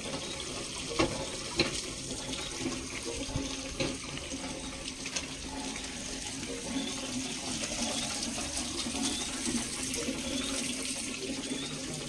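Water gushing from a hand pump's spout and splashing onto concrete as the handle is worked, with a few sharp clanks in the first four seconds.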